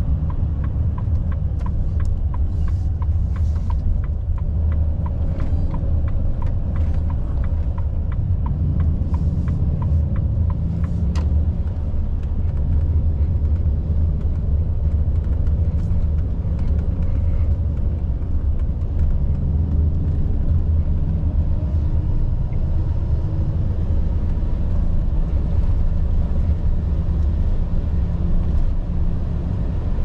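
Volvo FH 460 truck's 13-litre six-cylinder diesel running steadily with road rumble, a deep even drone. A light regular ticking sounds over it through the first ten seconds or so, then fades out.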